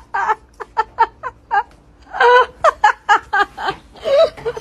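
A person giggling in quick, high-pitched bursts of laughter, with one longer drawn-out laugh about two seconds in.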